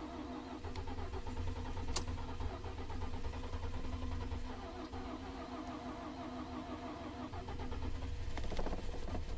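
Starter cranking the 2012 Ford F-150's 3.5-litre EcoBoost V6 steadily for several seconds in deep cold without it catching. It is a no-start with a fully charged battery.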